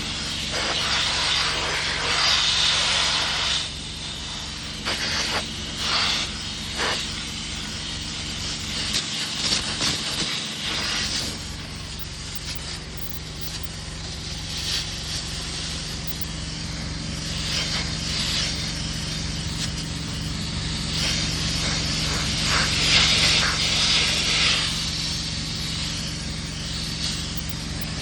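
Compressed-air blow gun hissing in repeated on-and-off blasts as dust is blown out of a broom tractor's air-conditioning parts, over a steady engine hum.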